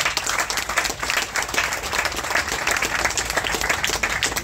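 A crowd applauding, many hands clapping at once in a dense, steady patter.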